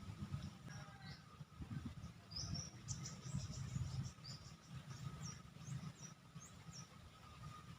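Outdoor ambience by a rice-field ditch: a run of short, high bird chirps, quick rising and falling notes, from a few seconds in until near the end, over a faint steady insect whine and a low rumble.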